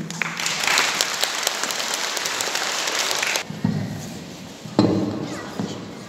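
Audience applauding in a large hall, cutting off abruptly after about three and a half seconds; a couple of dull thuds follow.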